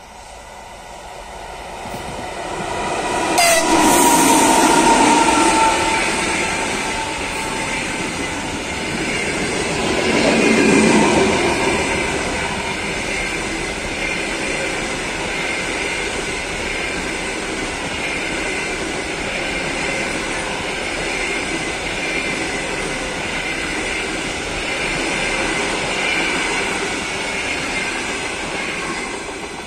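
EP2K electric locomotive and its passenger coaches passing close at speed: it comes up loud over the first few seconds, sounds a short horn about four seconds in, then gives way to a long steady rumble and clatter of coach wheels on the rails, fading near the end.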